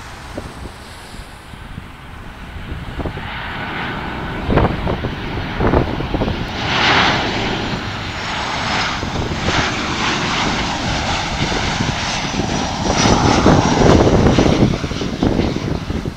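Boeing 737-700's CFM56-7B turbofan engines on final approach passing low overhead: a rushing jet noise that builds, is loudest about seven seconds in and again about thirteen to fifteen seconds in with a faint high whine, then drops away near the end.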